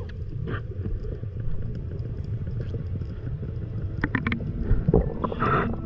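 A steady low rumble, with a cluster of sharp clicks about four seconds in, a louder knock near five seconds, and a short hiss just before the end.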